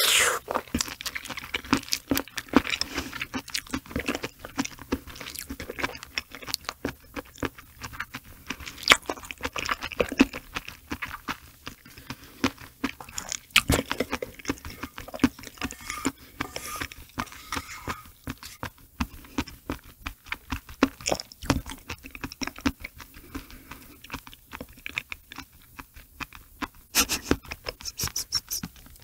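Close-miked mouth sounds of chewing raw sea cucumber roe and innards: many irregular wet clicks and smacks, with a louder bite right at the start.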